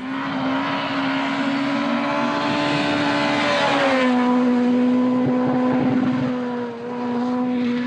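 Škoda Fabia rally car's engine held at high revs through a corner. Its pitch steps down once about four seconds in and then holds steady.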